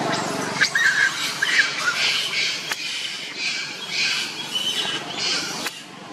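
Young long-tailed macaque screaming: repeated harsh, shrill cries with a few short squeaks about a second in, a distress call as a large adult male chases and lunges at it.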